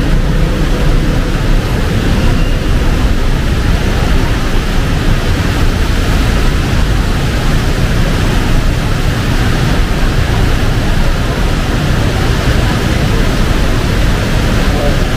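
Heavy rain pouring, a loud, steady, even hiss with a strong low rumble beneath it.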